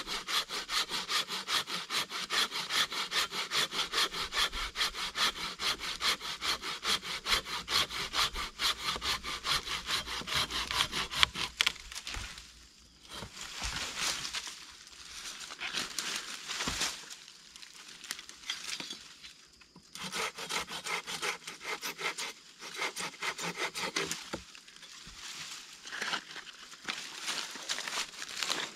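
Small hand saw cutting through a thin tree branch, in quick, even back-and-forth strokes, several a second, for about twelve seconds, ending with a sharp crack. After that the sawing goes on in slower, uneven strokes with pauses.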